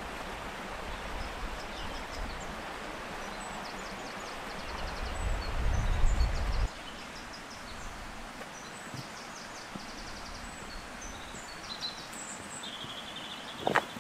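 Wind rushing with low buffeting on the microphone for the first half, cutting off suddenly about halfway through. Then small birds chirping and trilling over a quiet background, with a couple of footsteps on rocky ground near the end.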